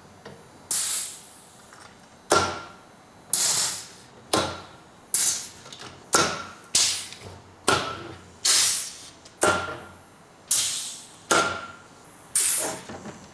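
Repeated sharp metal clanks, about one a second, from a C-clamp valve spring compressor being worked on an old Willys F-head cylinder head. Each strike rings briefly. The valve keepers are stuck tight in their retainers.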